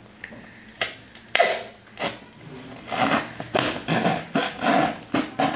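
A thin knife blade cutting through corrugated cardboard: a few separate sharp stabs, then from about halfway a quick series of scratchy cutting strokes.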